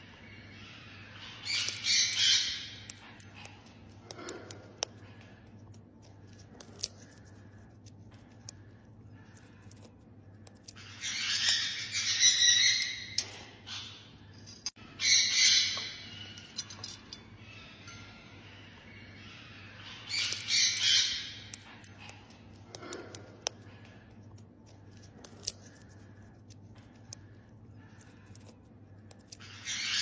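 Cockatoo giving harsh squawks in several separate bursts, each about a second long and irregularly spaced, with faint clicks of beak on food between them.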